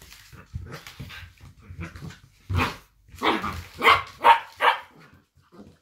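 Two cocker spaniels play-fighting: low growls, then a quick run of loud, sharp barks about halfway through.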